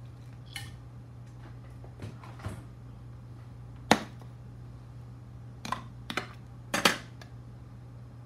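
Tools and a circuit-board holder being moved and set down on a workbench: scattered clicks and knocks, the sharpest about four seconds in and a small cluster near the end.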